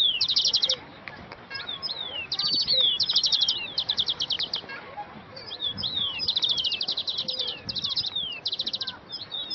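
Several small songbirds chirping and singing: short, fast trills of sharp high chirps come again and again, mixed with separate falling whistled notes.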